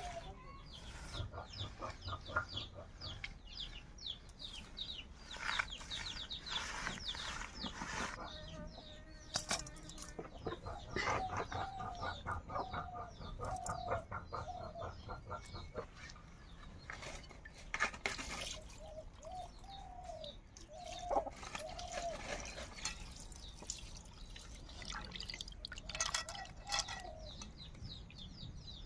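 A hen clucking in short repeated calls, over the wet scraping and rubbing of small snake fish being scrubbed by hand and splashed in a metal bowl of water.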